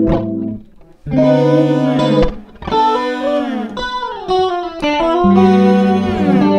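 Guitar-led music with effects: held chords that break off about half a second in and start again about a second in, with sliding, falling notes in the middle.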